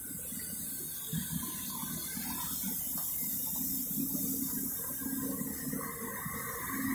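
Street-cleaning truck running, a steady low hum under a hiss.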